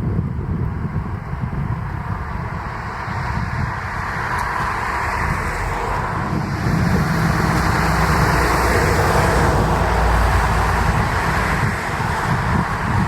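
KiHa 40/47 diesel railcar running past, its engine and wheels on the rails growing louder and loudest about two-thirds of the way through.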